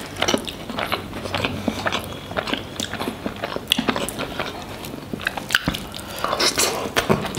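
Mouth sounds of chewing garlic naan soaked in curry gravy, a dense run of small wet clicks and bites.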